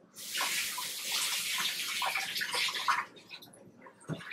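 Kitchen tap running water into the sink for about three seconds, then shut off; a brief knock near the end.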